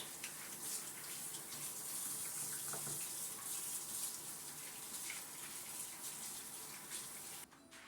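Water running steadily from a kitchen faucet, a hissing splash that shuts off abruptly near the end, with a faint clatter or two.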